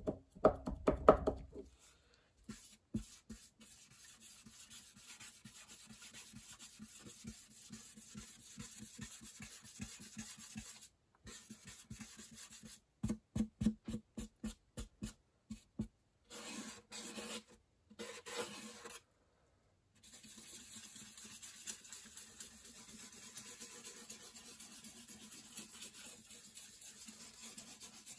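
A dye-soaked cloth rubbed in quick back-and-forth strokes over a bare wooden acoustic guitar top: a steady scratchy wiping that grows louder in a few spells, applying the red stain of a hand-dyed sunburst. A loud bump is heard right at the start.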